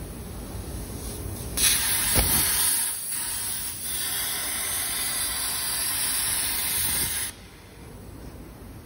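Plasma torch of an Esprit Lightning CNC plasma cutter firing and cutting metal plate: a loud, even hiss of the plasma arc and gas jet that starts suddenly about a second and a half in and cuts off abruptly about seven seconds in. A low steady machine rumble runs underneath.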